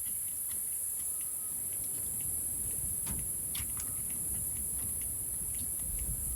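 Steady high-pitched shrilling of insects, with faint scattered clicks and taps over it.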